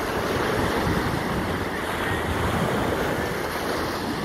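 Small waves washing onto a sandy beach in a steady surf, with wind buffeting the microphone.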